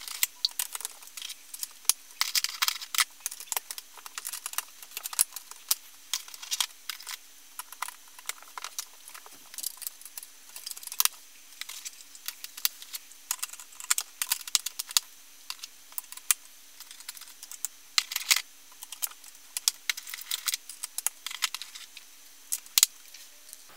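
Plastic Snap Circuits parts being handled and snapped onto the clear plastic base grid: irregular light clicks and clatter of plastic pieces.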